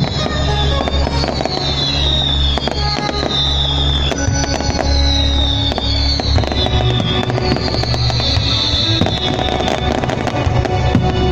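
Fireworks display going off in quick bangs and crackles, with music playing underneath.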